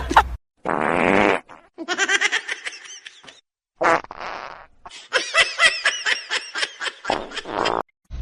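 Short clips cut together: fart-like buzzing blurts and rapid, rhythmic laughter, each segment ending in an abrupt cut to silence.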